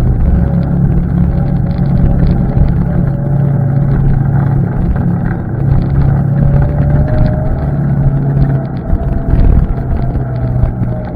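ATV engine running steadily under way, its pitch drifting a little up and down, with scattered rattling ticks over it.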